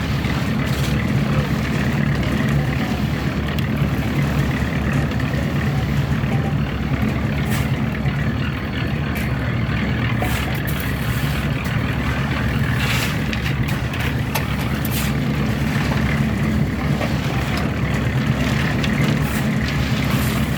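A heavy engine running steadily at an even pitch, with scattered light clicks and knocks over it.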